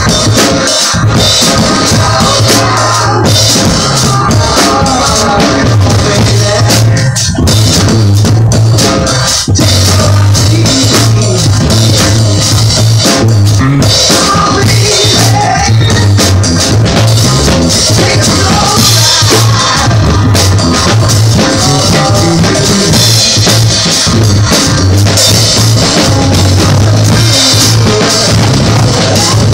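Drum kit played hard and continuously along with a rock song.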